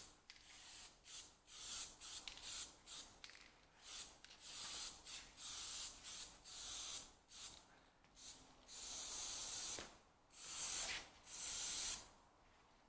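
Aerosol can of primer spraying in a string of short bursts, with a few longer bursts of about a second each in the second half.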